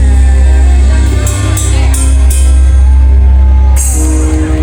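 Live band music played loud through a concert PA, with heavy bass and drum kit under held keyboard or instrument notes.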